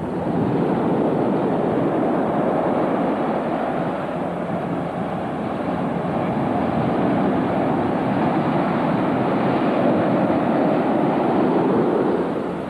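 Ocean surf breaking and washing up a sandy beach: a loud, steady rush of waves.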